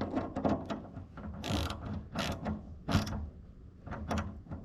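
Irregular metallic clicking and ratcheting of a hand grease gun being worked and handled on combine corn-head grease fittings, with a few short scraping rasps.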